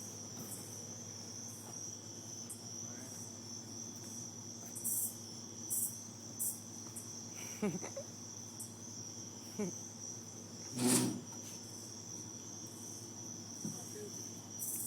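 Cicadas droning steadily on one high, even note, with short higher buzzes and one louder buzz about eleven seconds in.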